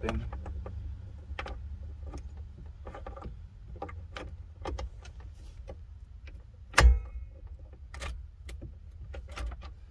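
Key and new ignition lock cylinder clicking and rattling as the cylinder is worked into a Ford Mustang's steering column, with one loud click about seven seconds in.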